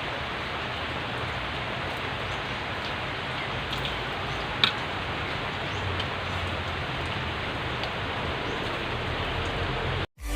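Steady hissing background noise with one short click about four and a half seconds in; it cuts off abruptly just before the end.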